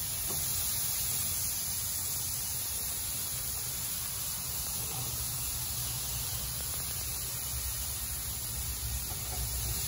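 Pork chops sizzling on a hot gas grill: a steady hiss over a low rumble.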